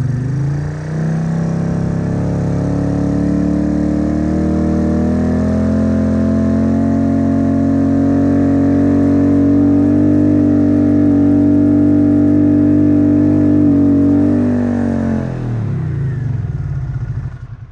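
1982 Honda CX500's V-twin engine revved on the throttle while standing still, as a rev test: the revs climb gradually from idle over the first few seconds, are held up steadily, then drop back to idle near the end.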